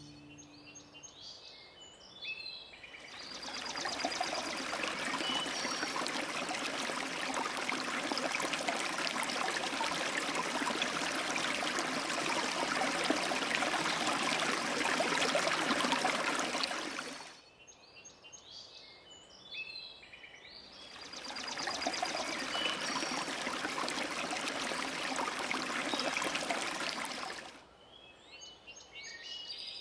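Birds chirping, with two long stretches of rushing water: the first comes in about three seconds in and stops abruptly just past the middle, and the second runs for about six seconds before ending abruptly near the end. Between and around the water, only the bird chirps are heard.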